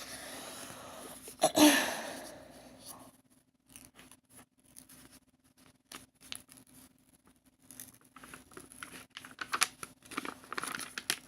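Plastic and paper packaging of a diamond painting kit rustling and crinkling as it is handled, with one sharp loud crackle about a second and a half in, a quieter stretch of small clicks, then a run of crackling near the end.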